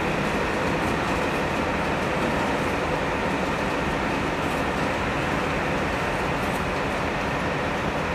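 Electric locomotive E 469.165 running light at low speed as it leaves a siding: a steady running noise from the locomotive and its wheels on the track.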